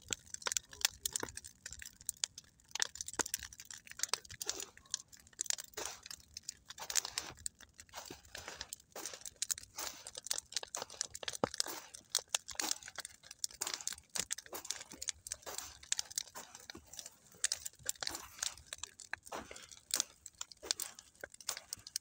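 Campfire crackling: wood burning with a dense, irregular stream of sharp snaps.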